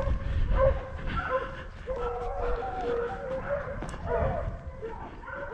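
Hunting dogs baying on the trail of a wild boar: drawn-out, wavering cries that overlap one another without a break, over a low rumble.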